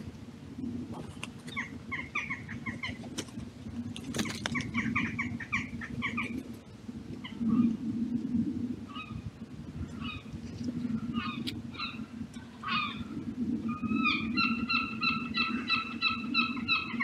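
Wild birds calling in short, scattered notes, with a quick run of repeated ringing notes near the end, over a low sound that swells and fades throughout.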